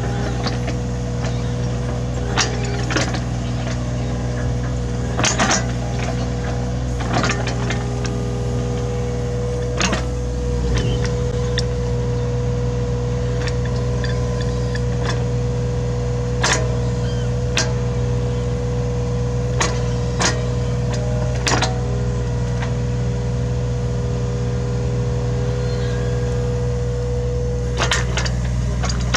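Hitachi Zaxis 33U mini excavator's diesel engine running steadily with a constant whine, while it digs. Scattered sharp knocks and clacks come every few seconds.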